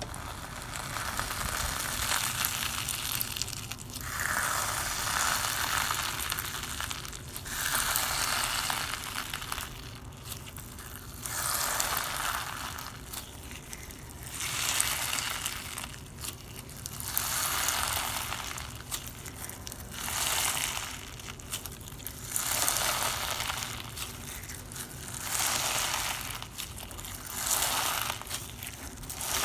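Slime squeezed and pressed in the hands over and over. Each squeeze gives a crisp, noisy crackle lasting one to two seconds, about every two to three seconds.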